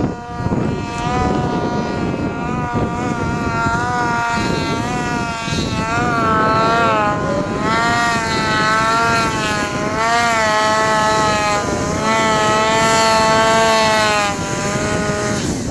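Snowmobile engine running hard as the sled climbs a steep snow chute, its pitch rising and falling again and again with the throttle, then easing off near the end.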